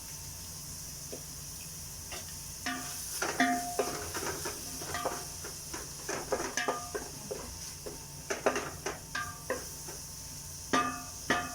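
Spoon stirring in a cooking pot, knocking and clinking against the pot many times at an irregular pace, each knock with a short metallic ring, over a steady faint hiss.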